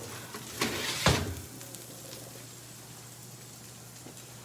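Metal sheet pan of green beans clattering as it is pulled from the oven, a short rattle ending in one loud knock about a second in, then a steady low hum.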